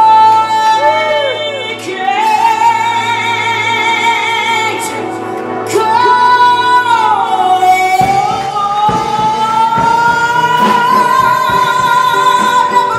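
A woman sings live, holding a string of long notes with strong vibrato. A short downward bend comes past the middle, then a final long note rises slowly through the second half.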